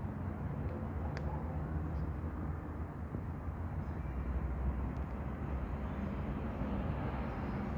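Steady low rumble of outdoor background noise, without distinct events.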